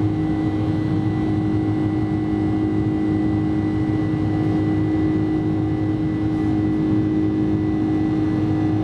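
Boeing 747-400's General Electric CF6-80C2 turbofans at climb thrust, heard inside the cabin over the wing: a steady low rumble with a strong constant hum and a few fixed higher tones above it.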